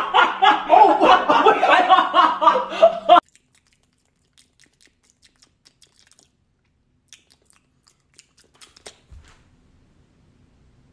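A person chewing a mouthful of cake loudly and close up, with wet munching, which stops abruptly about three seconds in. Faint scattered clicks follow.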